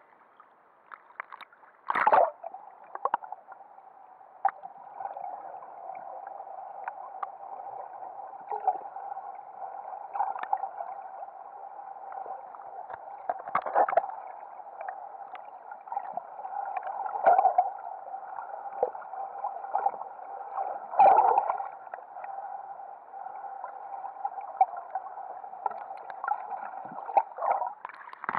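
Muffled water noise heard through a camera held underwater: a steady dull hum with gurgling. A few sharp knocks come at irregular times, the loudest about two seconds in and again near twenty-one seconds.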